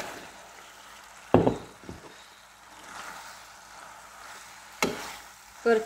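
Boiled penne being tipped into a tomato sauce and stirred with a steel spoon, sizzling gently, with a sharp knock against the pan about a second and a half in and another near the end.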